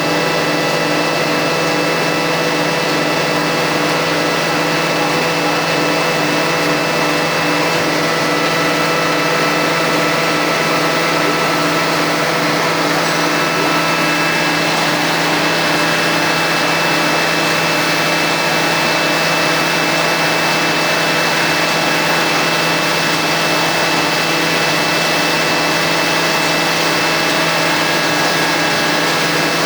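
Rotary veneer lathe in a plywood mill running steadily: an even mechanical hum with several held tones over a broad noise, one of them pulsing in a quick regular beat.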